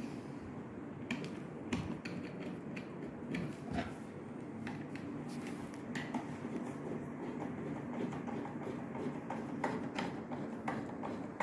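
Scattered light clicks and taps of lock hardware being handled as a smart lock's front panel is positioned and its top and bottom screws are set, over a low steady hum.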